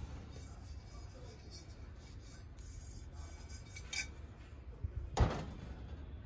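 A fluted brass stand being handled among brass vessels: a light metallic clink about four seconds in, then a louder knock about a second later as it is set down.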